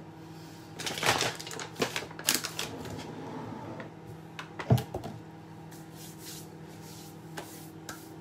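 Bottles and a jar being picked up, moved and set down on a wooden table: a run of small clicks and knocks at first, then one louder knock about halfway through.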